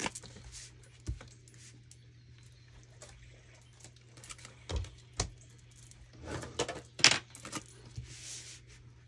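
Trash can bag being changed: scattered knocks and small clinks with short bursts of plastic and paper rustling, the loudest a sharp clatter about seven seconds in.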